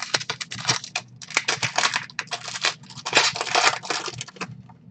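Foil wrapper of a 2020 Panini Prizm Draft Picks football card pack crinkling and tearing as gloved hands rip it open. It is a dense run of sharp crackles that thins out just before the end.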